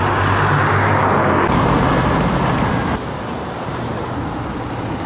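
A motor vehicle passes close by on the street with engine hum and road noise. It is loudest at the start and dies down about three seconds in.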